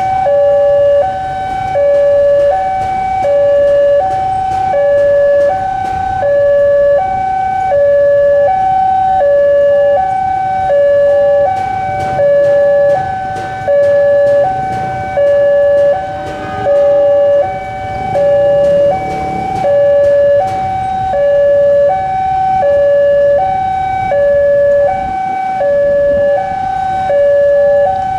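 Railway level crossing's electronic warning alarm sounding a steady two-tone high-low pattern, switching notes about every 0.7 seconds, warning that a train is approaching.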